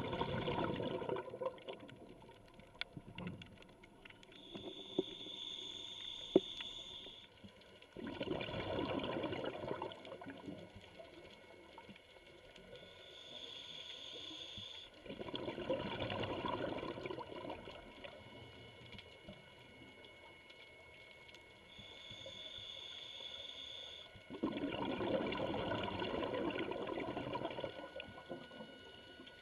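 Scuba diver breathing through a regulator: a hissing inhale through the demand valve with a faint high whistle, then a louder rush of exhaled bubbles, repeating about every eight seconds, with four bubble exhales in all. A single sharp click about six seconds in.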